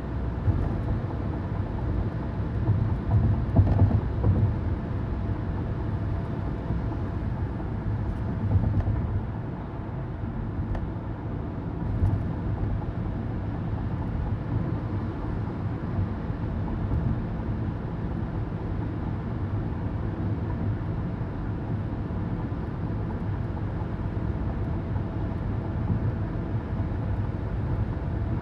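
Inside a car at highway speed: steady low road and tyre rumble with engine drone, with a few slightly louder bumps about 3 to 4 seconds in and again near the middle.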